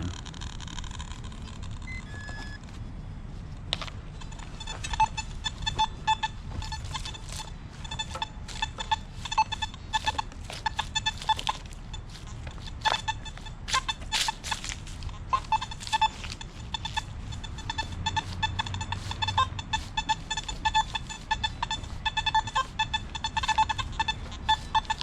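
Nokta Makro Simplex+ metal detector sounding rapid short, mid-pitched target beeps over and over as its coil is swung fast over the ground, mixed with scattered clicks and knocks.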